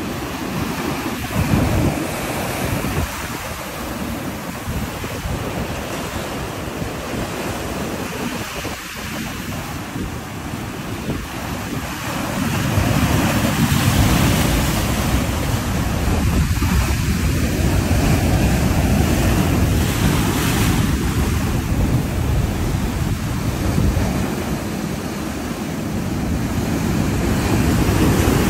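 Heavy surf breaking and washing over a rocky shoreline, rough seas stirred up by Hurricane Idalia, with wind buffeting the microphone. The surf gets louder about halfway through, with a deep rumble under the hiss of foam.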